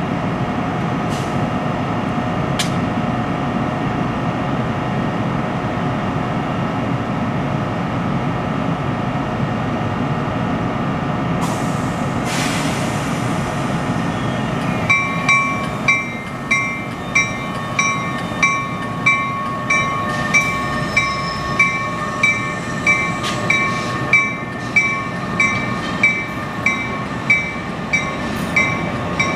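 ALP-46 electric locomotive standing with a steady machinery hum, then a short hiss about twelve seconds in. From about fifteen seconds its mechanical bell rings in steady, evenly spaced strokes, roughly two a second, as the train starts to depart.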